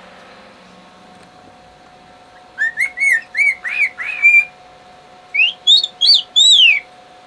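Male cockatiel whistling a tune: a quick run of about six short arching notes, a brief pause, then four higher notes, the last one long and falling.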